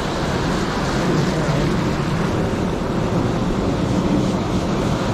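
Surf washing in on a beach, with wind buffeting the microphone.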